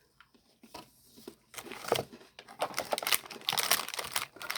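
Plastic snack wrappers and packaging crinkling as they are handled, starting about a second and a half in and growing busier.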